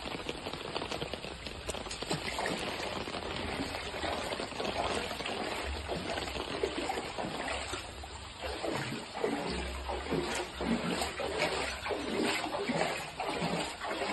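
Floodwater running and sloshing as a steady rush of water, turning more uneven and splashy in the second half.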